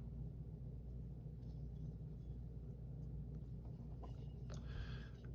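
Quiet room tone with a low steady hum, a couple of faint light clicks, and a brief soft rustle near the end.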